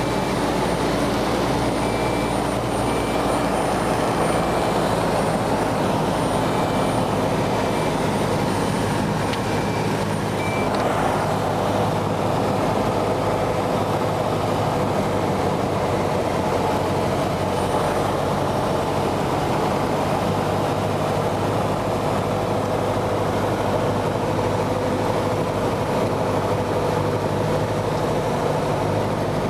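Cessna 172's piston engine and propeller droning steadily, heard from inside the cabin in cruise.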